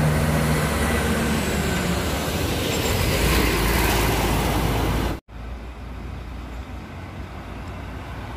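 Intercity buses and a truck passing close on the road: steady engine drone and tyre noise. About five seconds in it cuts off suddenly to a quieter, more distant traffic hum.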